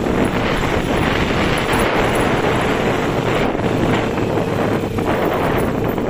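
Beker Cross 150cc motorcycle engine running steadily while riding over a rough dirt track, with wind buffeting the microphone.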